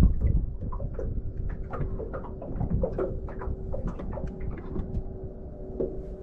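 Steady electric hum of a trolling motor under a low rumble of wind and water, with scattered light clicks and knocks around the boat.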